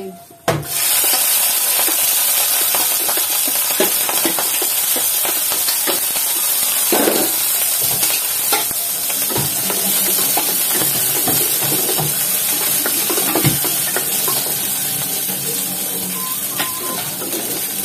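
Chopped radish seed pods hitting hot oil and fried garlic in a kadai: a sizzle that starts suddenly just under a second in and holds steady. A wooden spatula knocks and scrapes now and then as the pods are stirred.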